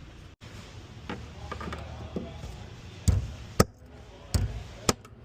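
A series of sharp knocks and clicks from hand work on car parts, with four louder thumps in the second half.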